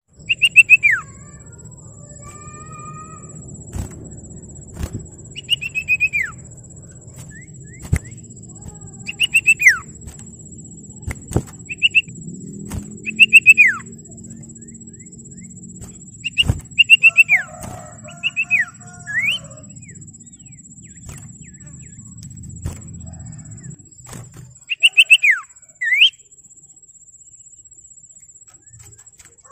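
Common iora (sirtu, cipoh) calling: short whistled phrases, each a quick run of notes sliding down in pitch, repeated every couple of seconds. Sharp clicks and a low hum lie under it, and the hum stops near the end.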